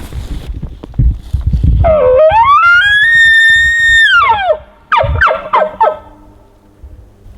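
An elk bugle: a low start sliding up into a high, clear whistle held for about two seconds, falling away, then a quick run of chuckles.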